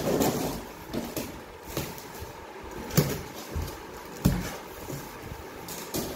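A box cutter slicing the packing tape on a cardboard carton, with sharp scrapes and knocks of the cardboard every second or so.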